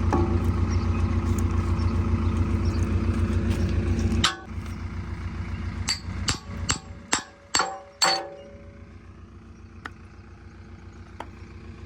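JCB 3DX backhoe loader's diesel engine running at raised revs, dropping to idle about four seconds in, followed by about seven sharp, ringing metal clangs over some four seconds, typical of the bucket pins being knocked during a bucket change. The engine then idles steadily.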